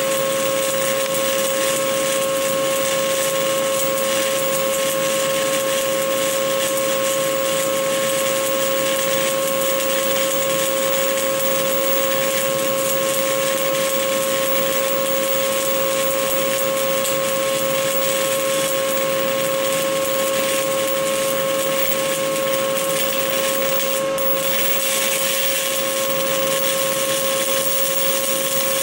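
Stick-welding arc of a 2.5 mm Esab OK 48.00 (E7018 low-hydrogen) electrode burning steadily: a continuous, even crackling hiss with a steady hum underneath.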